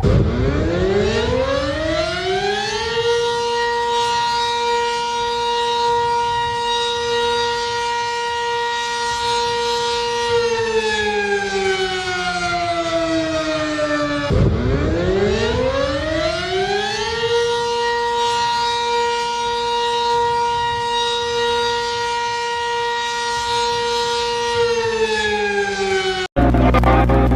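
Civil defense siren sounding a warning wail: the pitch rises over about three seconds, holds steady for about seven, then slides down, and the cycle repeats once. Near the end it cuts off suddenly into a low steady hum.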